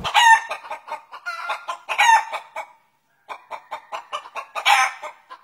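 Chickens clucking in quick runs of short calls, with louder calls near the start, about two seconds in and near the end, and a brief pause in the middle.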